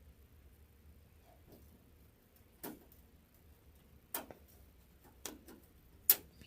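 A few separate sharp plastic clicks, about five spread over several seconds with the last the loudest, from zip ties being worked to fasten a school-bus transit curtain's grommets.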